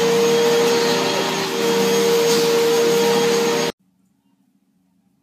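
Upright vacuum cleaner running with a loud, steady motor drone and whine. The drone dips briefly about a second and a half in, then cuts off abruptly a little before the end.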